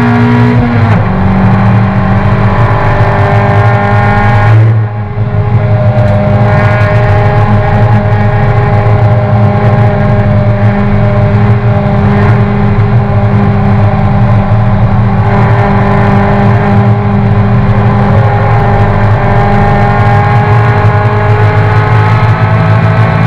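Toyota race car's engine pulling hard at high revs, heard from inside the cabin. The engine note dips briefly about five seconds in, as at a gear change or lift, then climbs steadily again.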